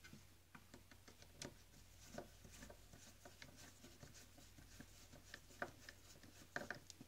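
Faint scattered clicks and light scraping of a screwdriver turning a screw into the plastic housing of a coffee machine's brew group, with small knocks of the handled plastic part.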